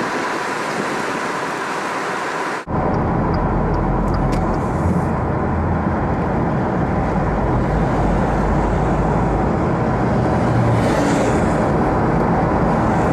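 Open-top convertible driving: a steady low rumble of wind buffeting and road noise. About two and a half seconds in, it cuts in abruptly, replacing a steadier, lighter outdoor hiss.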